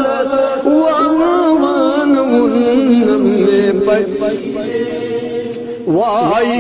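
A solo voice chanting a devotional song in long melismatic lines with heavy vibrato, holding one long note through the middle and then rising into a new phrase near the end.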